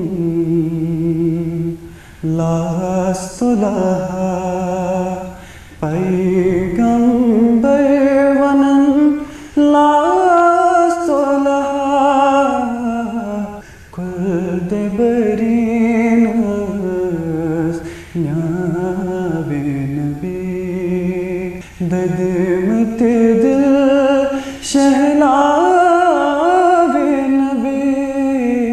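A young man's solo voice singing a naat, a devotional song in praise of the Prophet, in long held, wavering notes with short pauses for breath between phrases.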